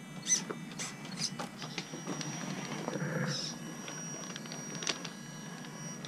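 Gmade GOM RC rock crawler working over rocks: repeated clicks and knocks of its tyres and chassis against the stones, with a thin steady high whine from its electric drivetrain from about a second and a half in.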